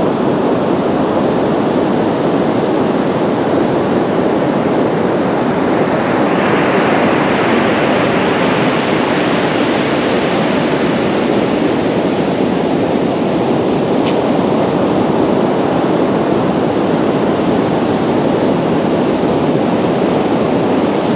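Steady rush of North Sea surf breaking on the beach, mixed with wind on the microphone. A brighter surge of surf comes in about six seconds in and eases off a few seconds later.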